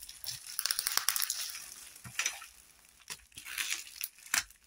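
Plastic bubble wrap being handled and crumpled: dense crinkling and crackling for about two seconds, then scattered crackles with a sharper click near the end.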